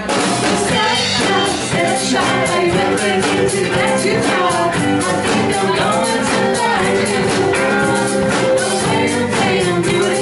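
A live rock band playing a song with sung vocals, electric guitars, bass and a steady drum beat, heard through a bar's PA.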